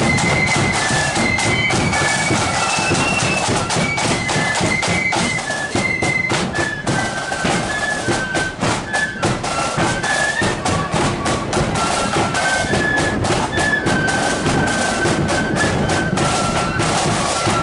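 Marching flute band playing a tune, a high flute melody of short and held notes over regular drum beats.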